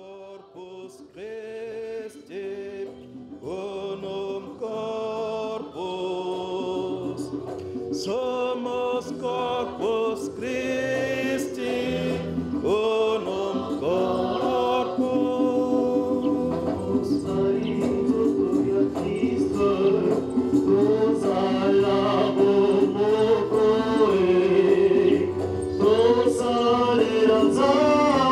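A choir singing a church hymn, swelling from soft to full over the first ten seconds or so.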